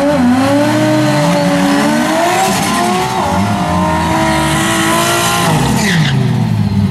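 Drag cars doing a burnout: engines held at high revs while the rear tires spin and squeal on the pavement. Near the end the revs fall away and the tire squeal stops.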